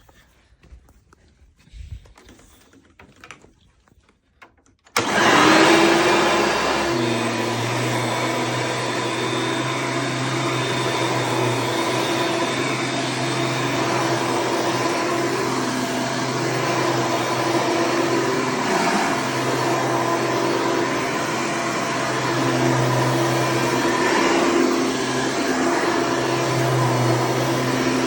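Hoover Preferred upright vacuum cleaner switched on about five seconds in, after a few faint clicks. Its motor spins up quickly, then runs steadily at full speed.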